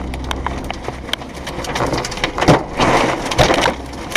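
Tornado winds and heavy rain hammering a car, heard from inside the cabin: a dense rush of rain with constant sharp hits of rain and debris on the body, swelling into a louder gust about two and a half seconds in.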